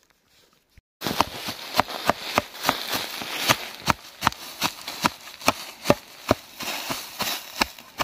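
Quick footsteps crunching through the forest floor, about three steps a second, starting about a second in.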